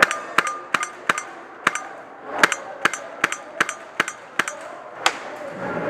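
Airsoft guns firing single shots, about fifteen sharp pops in quick, irregular succession.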